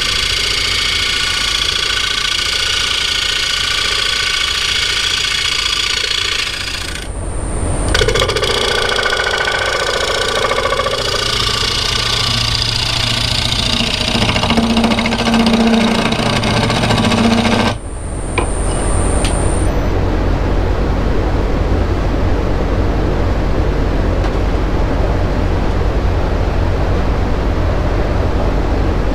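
Wood lathe running while wood is worked on it, a dense rasping noise with a high whine. The cutting sound breaks off briefly about seven seconds in, changes character, then stops about eighteen seconds in, leaving a steady low hum.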